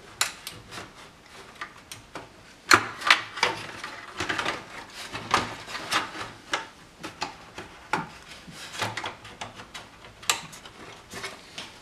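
Plastic front panel of a Marantz CD-40 CD player being worked onto the chassis: irregular clicks, knocks and scraping of plastic on plastic as its tangs are pushed into their slots.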